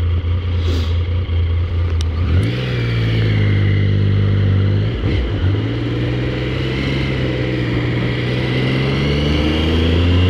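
Triumph Sprint ST 955's three-cylinder engine, heard from on the bike: it runs steadily at low revs for about two seconds, then pulls away with rising revs. There is a brief dip about five seconds in, like a gear change, and then the revs climb steadily again.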